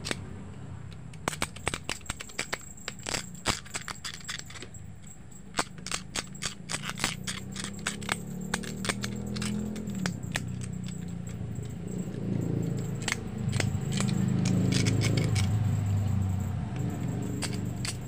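Irregular small clicks and scratches of the metal clip of a CRT high-voltage anode cap being scraped clean of rust by hand. A low background rumble swells in the second half.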